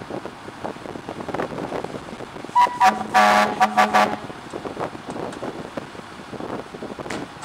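A vehicle horn sounds once for about a second, a few seconds in, just after a couple of short higher beeps.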